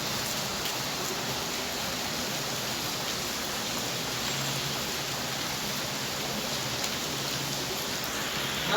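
Heavy rain falling steadily on surfaces, an even hiss of many drops.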